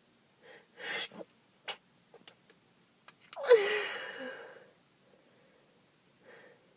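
A person sneezing from allergies: a loud sneeze about three and a half seconds in, its voiced start falling in pitch and trailing off over about a second. Shorter noisy breaths and a click come before it.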